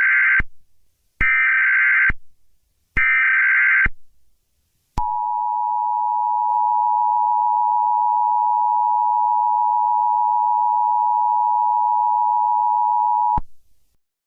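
Emergency Alert System signalling: three short bursts of SAME header data, about a second each with short gaps, followed by the EAS two-tone attention signal, a steady dual tone held for about eight seconds before cutting off, which announces a spoken alert.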